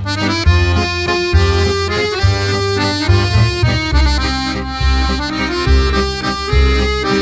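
Instrumental background music: a melodic tune over bass notes that change about once a second.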